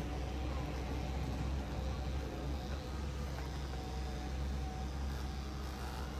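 Electric pet clippers running steadily as they shave a dog's matted coat, over a steady low rumble.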